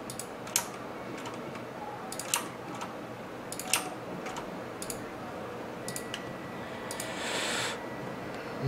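Scattered computer mouse clicks and keyboard taps over a steady low room hum, with a brief hiss about seven seconds in.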